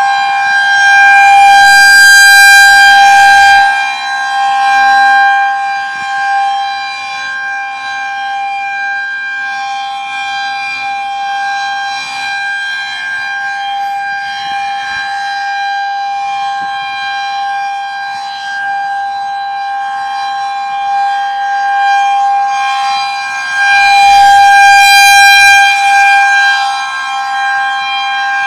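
Federal Signal 2001-SRNB outdoor warning siren sounding a steady, unwavering tone during a test. It swells loud twice, about 22 seconds apart, as its rotating horn sweeps past.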